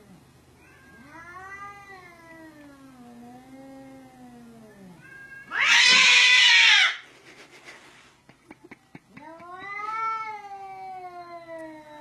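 A cat meowing in long, drawn-out calls that rise and fall in pitch, two of them, with a loud harsh burst lasting about a second near the middle, followed by a few quick clicks.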